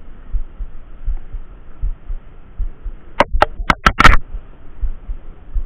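Ultralight spinning rod being cast: a quick run of five sharp clicks and rustles about three seconds in, the last the longest and loudest. Under it runs a low, irregular thumping.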